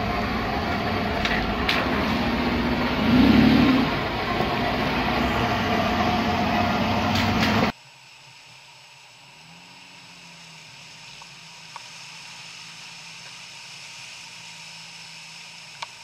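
Suzuki Grand Vitara 4x4 at a shallow river ford: a steady loud rushing noise, with the engine revving briefly about three seconds in. After a sudden cut the engine runs low and faint, heard from inside the cabin as the vehicle drives slowly through the water, its pitch rising and falling gently, with two small clicks near the end.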